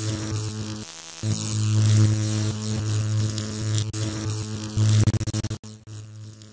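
Electrical buzzing sound effect, a loud steady mains-type hum with crackling hiss like a flickering neon sign. It cuts out briefly about a second in and stutters rapidly on and off around five seconds in.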